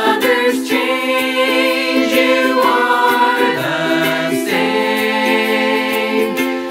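Several voices singing a slow, hymn-like song together in harmony, holding long notes.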